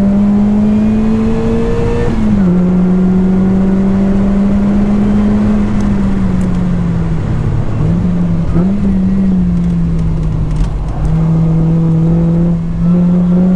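Lotus Elise 220 Sport's supercharged four-cylinder engine, fitted with a 2bular H1 silencer, heard from on board as it pulls up through the revs. The revs drop sharply for gear changes about two seconds in and near the eleven-second mark, with a quick dip and recovery around eight seconds, over a steady hiss.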